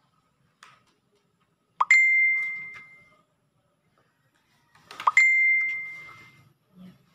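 Two identical ding sound effects about three seconds apart, each a quick upward bloop that turns into a bright ringing tone fading away over about a second.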